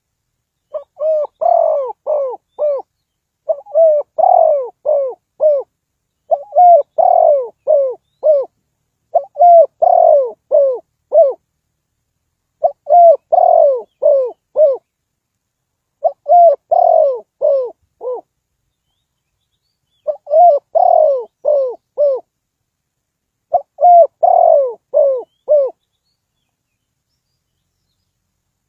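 Spotted dove cooing: eight repeated phrases of four or five notes each, about one phrase every three to four seconds.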